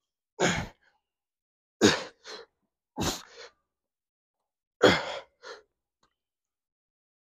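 A weightlifter's short, forceful breaths out, four of them one to two seconds apart, one with each rep of a heavy incline dumbbell press with 80-pound dumbbells.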